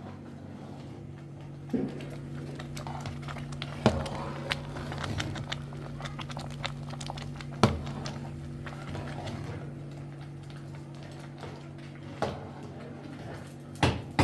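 A steady low hum with a few sharp knocks and clatters at irregular intervals, a cluster of them near the end.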